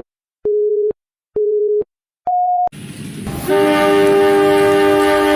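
Countdown beeps, three low electronic tones about half a second apart and then one higher tone, followed by a rising rumble and a steady two-tone train horn.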